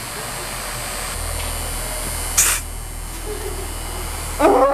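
Honda Accord idling with exhaust hissing steadily out of the tailpipe and a low hum that steps up about a second in. The owner says the car is idling higher than it should, with a bad front O2 sensor. A sharp clack comes about halfway through, and a short, loud, rising high-pitched sound comes right at the end.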